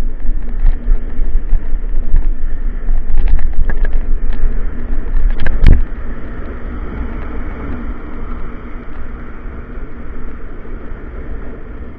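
Wind buffeting the microphone and the rattle of a bicycle rolling over paving slabs, with scattered clicks and one sharp knock just before six seconds in as the bike comes off the pavement onto the road. After that the rumble is lower and smoother on asphalt.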